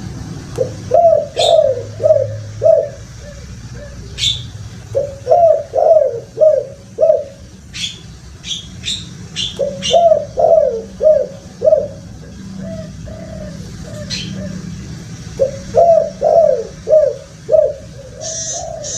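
Spotted dove (tekukur) cooing: four phrases of several low, repeated coo notes each, a few seconds apart. Short, sharp chirps from another small bird come in between, over a steady low hum.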